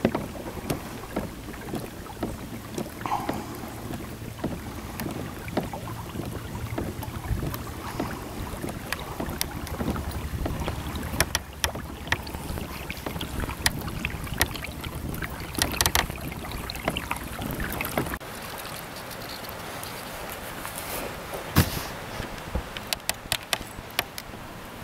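A kayak moving across calm water: small splashes and knocks at the hull, with a low wind rumble on the microphone that drops away about three-quarters of the way through.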